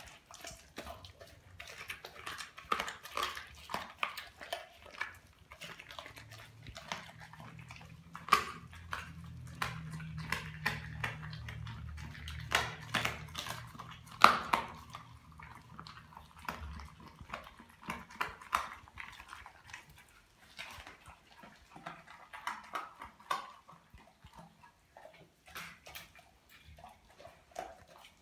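Doberman chewing a whole raw tilapia, with many sharp, irregular crunches, the loudest about fourteen seconds in. A low hum runs under the middle for about ten seconds.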